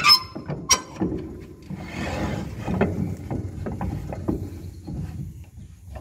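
Steel tongue jack on a Krone KR 125 round baler being worked by hand: its lever is pulled over and the jack swung up. There are two sharp metal clanks with a short ringing note less than a second apart, then a run of light clicks and rattles.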